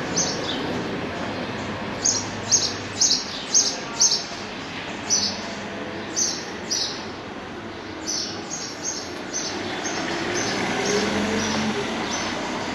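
Small birds chirping: short, high, downward-sliding calls in quick runs of several, twice, over a steady background hum of the street.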